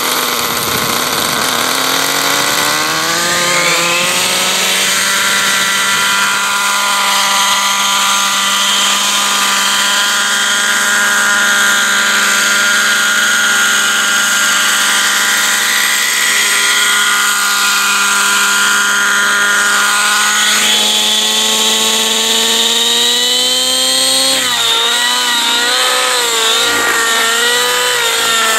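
Nitro glow engine and rotor head of a Rave ENV 90 RC helicopter spooling up: the pitch rises over the first few seconds, then holds a steady high note. About 24 seconds in the pitch jumps and starts wavering up and down as the helicopter manoeuvres in flight.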